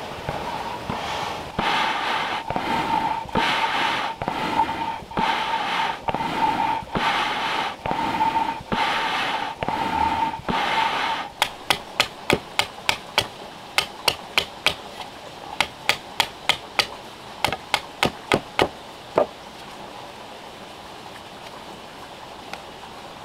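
Hand-pumped hollow-log piston bellows: about a dozen strokes, a whoosh of air every 0.8 s or so with a steady hooting tone, stopping after about eleven seconds. Then a steel blade cuts into a log in quick runs of sharp ticks, which stop a few seconds before the end.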